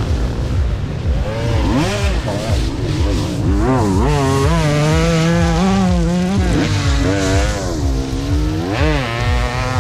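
Motocross bikes racing, their engines revving up and down in pitch, with a steady low rumble underneath.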